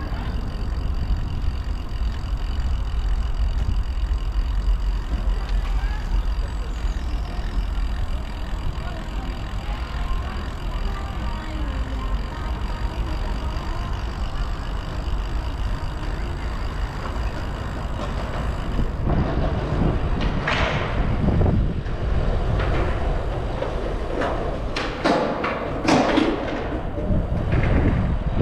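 Steady low rumble of a bicycle ride, joined in the last third by several short, sharper noisy bursts.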